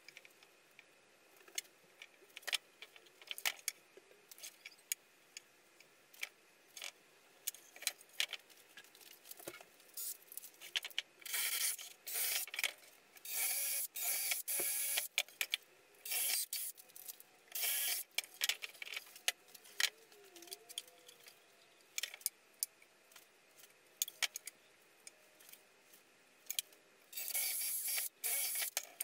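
Cordless drill with a twist bit boring holes into pine framing timber, running in bursts of a second or two, grouped in the middle and again near the end. Scattered knocks and clicks of the timber being handled and set in place come before the drilling.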